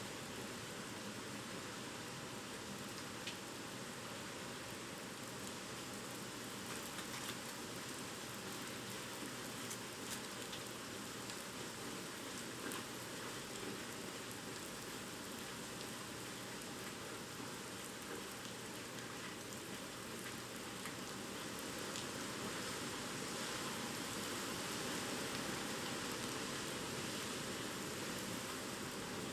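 Typhoon rain falling steadily as an even, unbroken hiss with a few scattered drop ticks, swelling slightly near the end.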